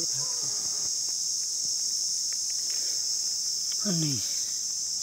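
Steady high-pitched insect chorus. About four seconds in there is a short falling vocal sound from a person.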